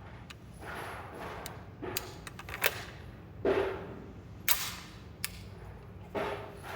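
Scattered gunshots at a shooting range, about six sharp reports at uneven intervals, several with a short echoing tail over a steady background hiss.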